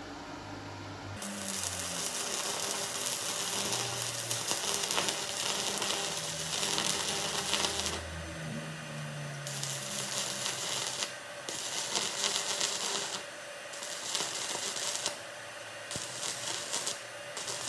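Stick (MMA) arc welding with a DC inverter welder: the arc gives a crackling hiss in runs of a few seconds, breaking off and striking again about six times.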